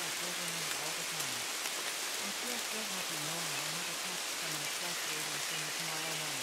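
Steady rain noise, with a faint, low voice speaking underneath it: subliminal affirmations mixed in quietly beneath the rain.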